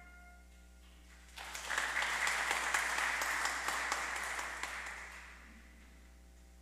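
Congregation applauding, starting about a second and a half in and dying away after a few seconds.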